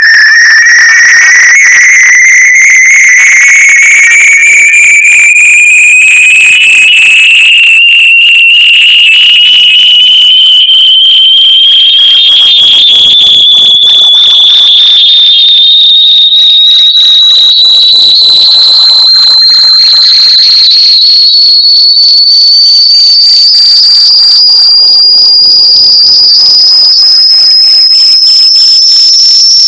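Loud electronic finder tone for locating lost AirPods or earbuds: a single shrill, whistle-like tone that glides slowly and steadily upward in pitch, from high to very high.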